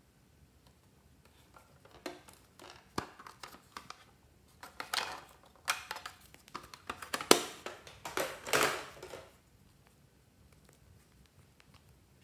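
Hard plastic pencil case being opened and handled, with a marker taken out of it: a run of clicks, knocks and rattles of plastic from about two seconds in until about nine seconds in.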